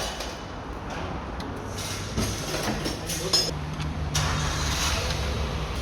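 Workshop vehicle lift lowering a car: a steady mechanical hum over a hiss, with a low drone that comes in about two seconds in and holds.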